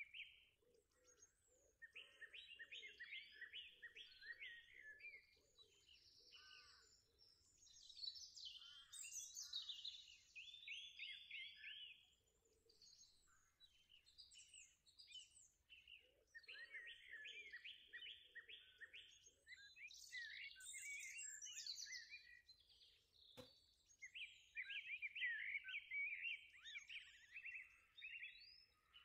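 Faint birdsong: bursts of rapid trills and high chirps, a few seconds each with pauses between, repeated several times. A single sharp click comes about two-thirds of the way through.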